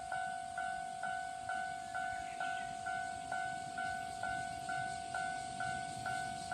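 Japanese railway level-crossing warning bell ringing at a steady pace of about two dings a second, each ding fading before the next.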